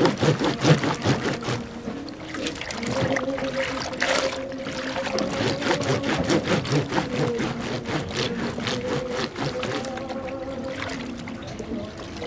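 Wet cloth being scrubbed up and down on a ribbed washboard in a zinc tub of water: repeated uneven rubbing strokes with water sloshing and splashing.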